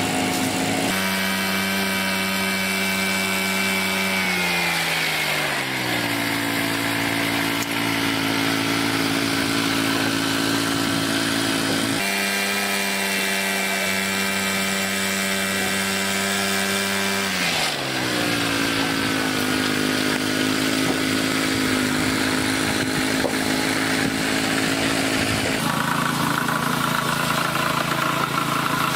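An engine running steadily. Its pitch jumps up suddenly twice and each time sinks back over a second or two, with another shift in pitch near the end.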